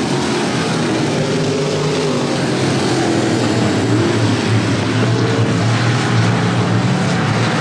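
Dirt-track stock car engines running at racing speed around the oval, the engine note shifting up and down in pitch as the cars go by.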